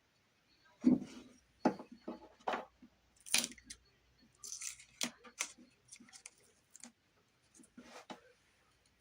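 Irregular knocks, clicks and scraping sounds, loudest about a second in.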